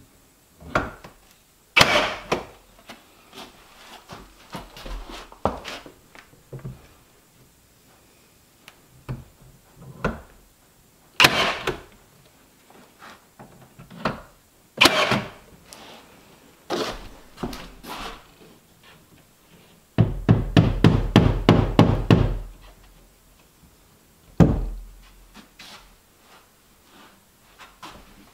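A cordless nail gun firing nails into wooden trim boards: single sharp shots a few seconds apart, with lighter knocks of the boards being handled between them. About twenty seconds in comes a quick rattling run of many strikes lasting about two seconds.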